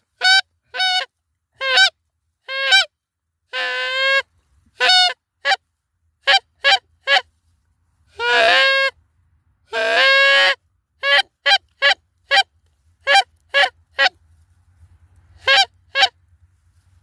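Canada geese honking: about twenty loud honks, mostly short and clipped, some in quick doubles, with three longer drawn-out honks. The geese are flying in toward the hunters' spread.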